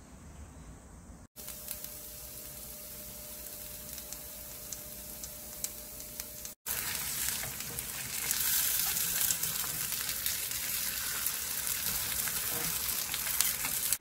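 Lettuce-and-gochujang pancakes (sangchu jangtteok) frying in oil in a pan, sizzling steadily with small crackles and pops. The sizzle starts a little over a second in, breaks off for a moment about six and a half seconds in, then comes back louder.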